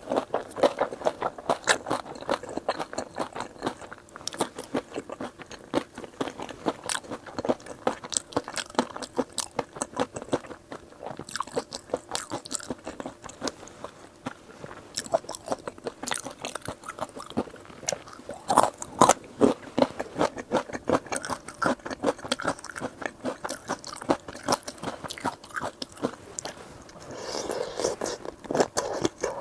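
A person chewing and crunching food close to the microphone, a dense run of sharp crunches with a louder cluster a little past the middle.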